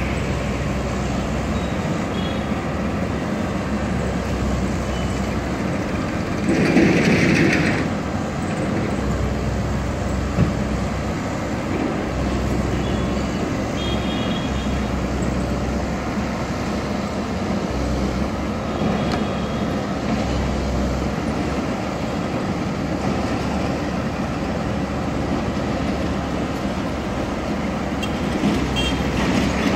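Komatsu hydraulic excavator's diesel engine running under load as it works, a steady mechanical din with a low rumble that rises and falls, mixed with road traffic. A louder rushing noise lasts about a second and a half about seven seconds in, and a single sharp knock comes about ten seconds in.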